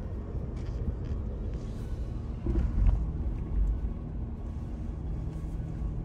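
A car driving along a cleared road: a steady low rumble of engine and tyres.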